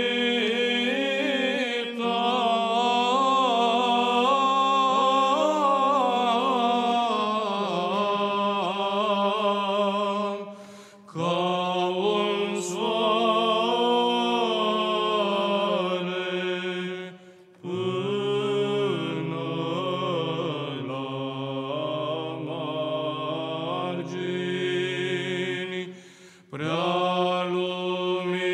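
Two male voices singing Orthodox Byzantine chant in the fifth tone. One holds a steady low drone (ison) while the other sings the ornamented melody above it. The phrases are broken by brief pauses about 11, 17 and 26 seconds in.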